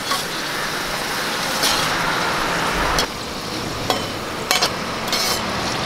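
Small pieces of pappadam deep-frying in hot coconut oil, a steady sizzle, with a few light clicks of a perforated metal skimmer stirring them against the wok.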